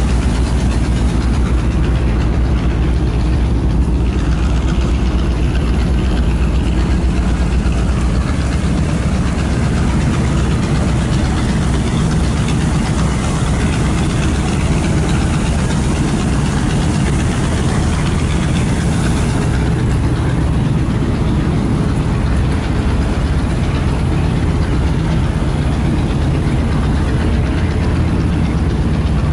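Diesel engine of a Moskva-type river pleasure boat running steadily as the boat gets under way: a loud, even, low drone.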